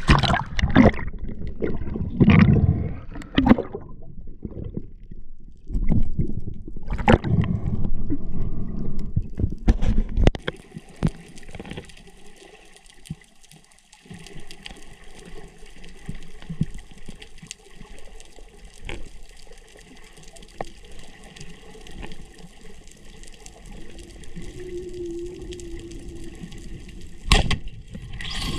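Seawater sloshing and splashing over a camera at the surface, in loud, irregular bursts. About ten seconds in, the sound turns to the muffled, steady hiss of the camera underwater, with scattered faint clicks and one sharp click near the end.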